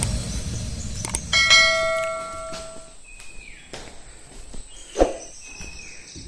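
A small bell chimes once, right after a click, and rings out over about a second and a half; a single thump follows later.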